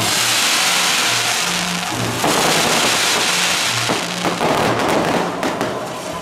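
Fireworks fountains hissing and crackling as they spray sparks, with a fresh surge about two seconds in and the rush dying down near the end.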